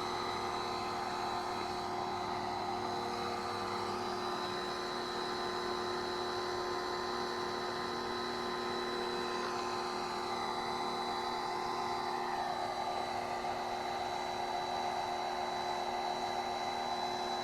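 Electric pressure washer running steadily, its motor and pump giving a constant hum with a high whine, as it pushes water through a sewer jet hose fed into a drainage pipe.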